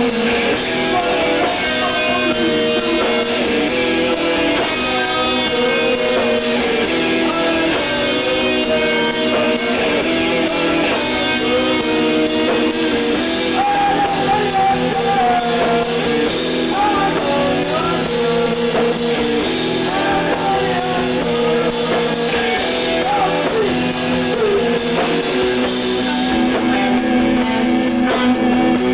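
Live emo rock band playing: electric guitars and a drum kit with cymbals, and sung vocals over the top.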